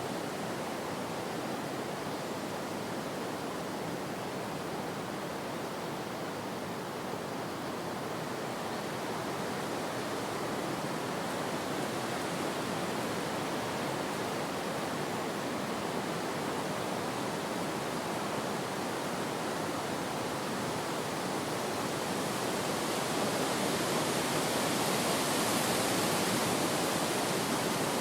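Steady rushing wind, swelling a little louder near the end.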